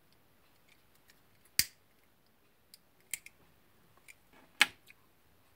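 Several short, sharp clicks from small hand tools being handled, the loudest about a second and a half in and again near the end.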